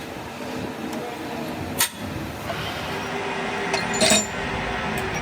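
Metal clinking in a workshop: a sharp click a little under two seconds in, then a louder ringing metallic clink about four seconds in, over a steady background machine hum.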